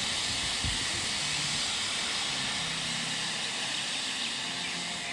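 Fog installation releasing an artificial cloud of mist, with a steady, loud hiss from its nozzles. A brief low thump comes under a second in.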